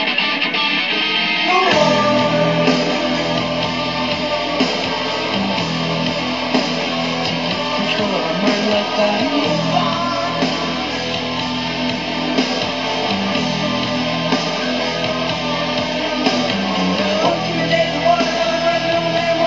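Background rock music led by guitar; the fuller band with a low bass line comes in about two seconds in.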